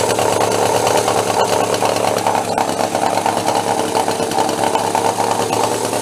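Small gas engine of a motorized-bicycle engine kit running steadily, with a fast, even pulse.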